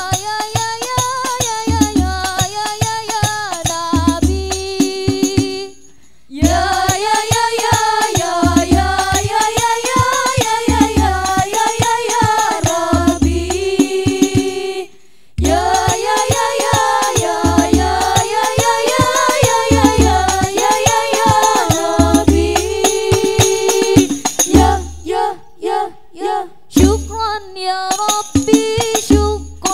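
Al-Banjari sholawat ensemble: women singing a devotional melody in arching phrases over hand-struck terbang frame drums keeping a steady deep beat. The music breaks off briefly twice, and near the end the drums play short, clipped hits with pauses between them.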